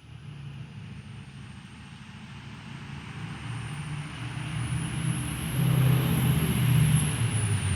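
A heavy road vehicle going by: its engine rumble swells, loudest near the end, over a steady hiss of tyres on the road, with a high whine that rises and then falls in pitch.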